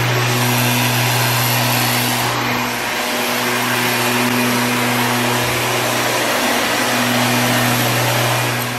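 A steady machine drone: a low hum under an even hiss, which cuts off suddenly near the end.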